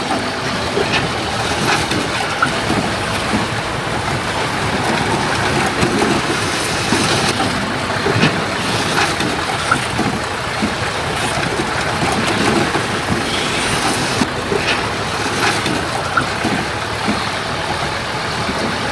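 Heavy earthmoving machinery running steadily, with scattered knocks and clatter throughout.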